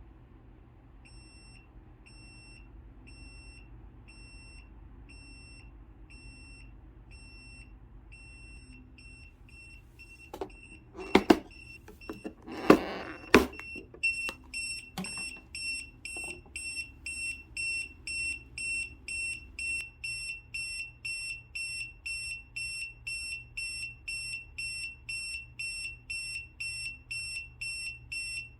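A ZeroCO camping carbon monoxide alarm going off during a test, its signal that it has detected carbon monoxide. It gives a high, piercing beep over and over, faint at first. A few loud knocks come about ten seconds in, and after them the beeping is louder and steady at about two beeps a second.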